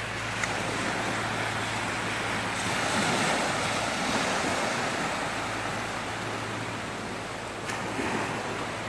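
Small waves washing up onto a sandy beach, a steady wash of surf that swells a little about three seconds in.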